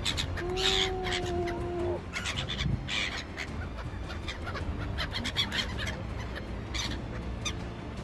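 A flock of gulls calling in many short, irregular squawks as they swoop overhead. Near the start, a steady tone is held for about a second and a half.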